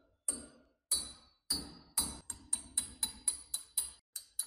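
A hammer striking metal about a dozen times, each blow ringing briefly. The blows start about one every half second and quicken to about four a second.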